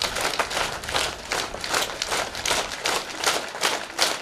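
A crowd of students clapping together in unison, a steady fast rhythm of about three to four claps a second, as a group cheer.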